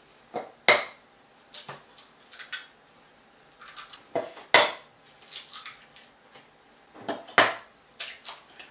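Eggs being knocked against the rim of a glass jar to crack them: three times, each a light tap followed by a sharper crack, about three seconds apart, with softer knocks and clatter in between.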